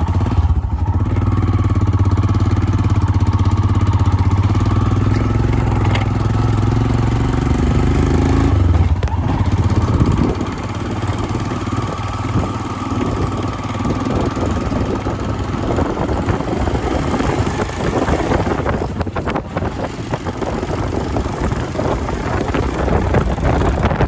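Motorcycle engine running with a steady low note; about ten seconds in it gives way to a rougher, steady rush of wind and road noise as the bike rides.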